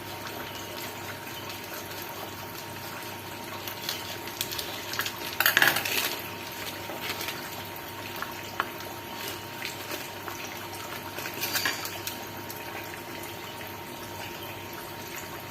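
Steady hiss, swelling louder twice, about five and a half and about eleven and a half seconds in, with a faint steady high tone underneath.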